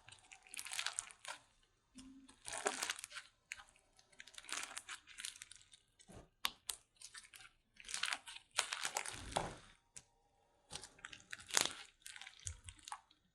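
Slime being squeezed and stretched by hand close to the microphone, giving about seven bursts of crackles and pops, one every second or two, with short quiet gaps between.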